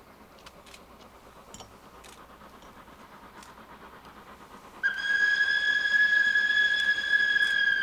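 Steam locomotive whistle blowing one long, steady note that starts suddenly about five seconds in, after a few seconds of faint background sound.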